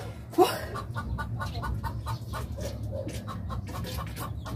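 Chickens clucking: a quick run of short clucks, about four or five a second, after a single rising call.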